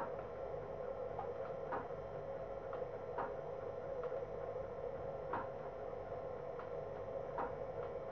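Steady hum with faint, irregular ticks; the clearest come about every two seconds, with softer ones in between.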